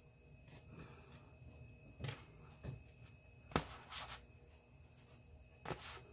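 Faint clicks and light knocks of toasted hamburger buns being lifted off an electric griddle and set on a plate, five or so in all, the sharpest a little past the middle.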